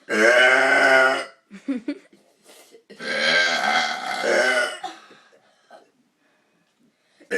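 Deliberate loud burps in a burping contest: one lasting a little over a second right at the start, a few small throat sounds, then a longer burp of about two seconds from about three seconds in.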